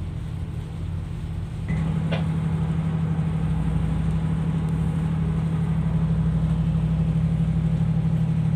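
Ship's diesel engine running with a steady low throb, stepping up louder about two seconds in as power is increased.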